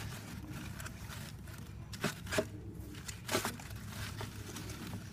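Gerbils rustling and crinkling in shredded-paper bedding, with a few short sharp clicks about two seconds in and again a second or so later, over a steady low hum.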